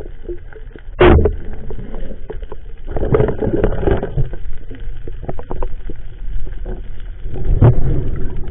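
Muffled, uneven water noise picked up by a camera held underwater: sloshing and rushing, with louder surges about a second in, around three to four seconds, and near the end.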